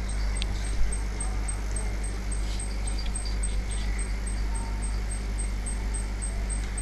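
A steady low electrical hum and hiss of background noise on the recording, with one sharp click a little under a second in.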